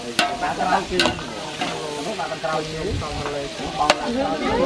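A ladle stirring and scraping yellow spice paste frying in oil in a large aluminium pot, with steady sizzling and a few sharp clanks of the ladle against the pot.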